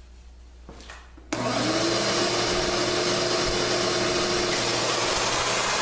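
Electric router switched on about a second in, spinning up with a brief rising whine and then running steadily at full speed in a scarfing jig, ready for the first shallow pass.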